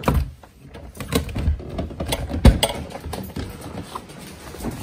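A doorknob turning and a door opening, then bags and coat fabric rustling close to the microphone, with scattered clicks and knocks and one heavy thump about halfway through.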